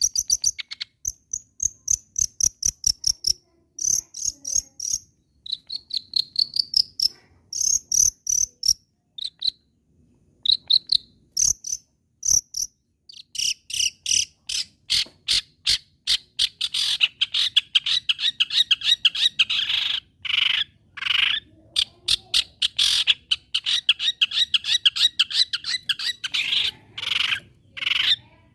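Long-tailed shrike singing: short high chirps and rising whistled notes in bursts, then from about halfway a long, fast, scratchy chatter of rapidly repeated notes.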